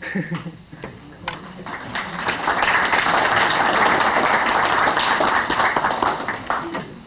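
Audience applauding: a few scattered claps about a second in swell into steady applause, which fades out near the end.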